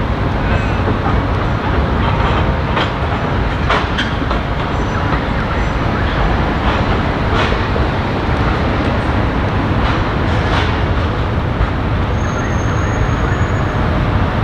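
A Melbourne B-class tram running slowly over a portable crossover bolted on top of the existing tram tracks, with a steady low rumble. Its wheels knock and click every few seconds as they cross the rail joints and plates.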